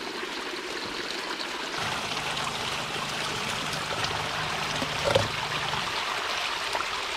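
Shallow creek water running and trickling over rocks in a small pool, a steady rushing; one soft knock about five seconds in.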